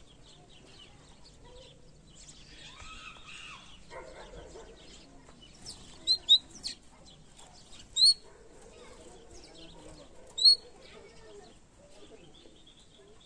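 Domestic canary giving a few loud, short, sharp chirps: a quick run of three about six seconds in, then single chirps about two and four seconds later, over faint background sound.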